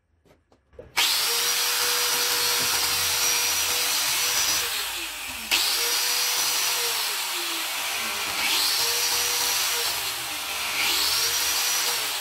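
Angle grinder motor starts about a second in and runs with a high whine. Its speed is repeatedly turned down and back up with the voltage regulator's knob, so the pitch sinks and then jumps back up about three times.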